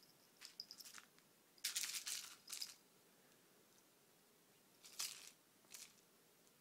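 Short bursts of rustling and scratching from two long-haired cats wrestling on a fabric bedspread, the loudest flurry about two seconds in and smaller ones around five seconds.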